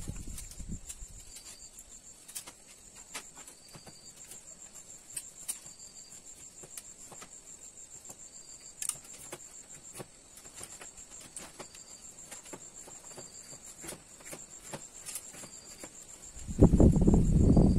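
Crickets trilling steadily, with a second short chirp repeating about every second and a half, over scattered small clicks and taps from bamboo slats being handled. Near the end a loud low rumble comes in and is the loudest sound.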